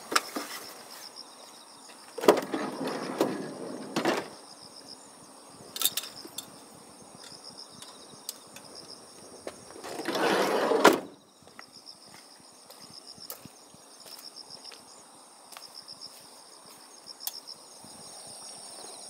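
Crickets chirping steadily at night, with bursts of rustling and knocking as gear is handled at the car: a loud spell a couple of seconds in, and a second-long rushing noise about ten seconds in that stops abruptly.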